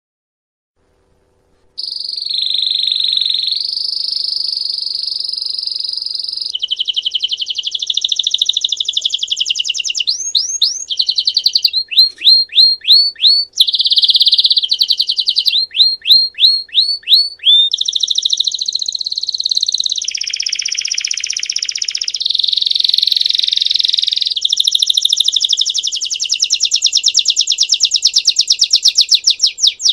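Belgian canary singing its "campainha" (bell) song, starting about two seconds in: long unbroken high trills and rolls, with runs of quick repeated rising notes partway through.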